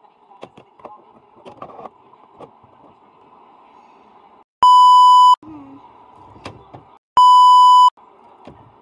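Two loud, steady electronic censor bleeps, each under a second, about two and a half seconds apart, with faint clicks and taps of handling before them.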